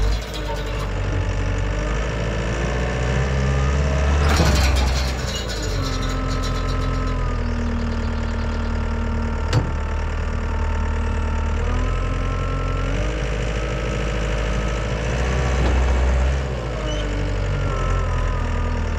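Takeuchi compact track loader's diesel engine working hard as it pulls on a chain against a seized drive shaft slip joint that will not come apart, its pitch rising and falling as the load changes. Short bursts of noise come at the start and about four seconds in, with a single sharp click near the middle.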